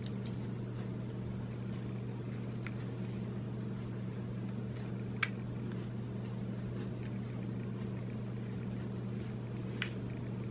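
A steady low hum with a few sharp small clicks over it, the sharpest about five seconds in. The clicks come from a compact camera's plastic rear bezel and body being handled and pressed into place.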